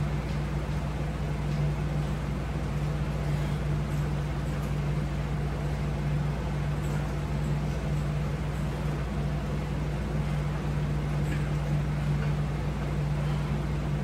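Window air-conditioning unit running with a steady low hum.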